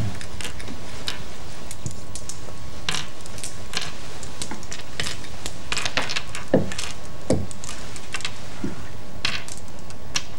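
Go stones clicking against the wooden board and against each other as the players rearrange them to count territory at the end of the game: irregular sharp clicks, two of them louder near the middle.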